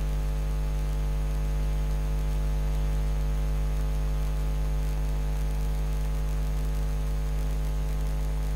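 Steady electrical mains hum: a low drone with a row of fainter hum tones above it, holding unchanged throughout.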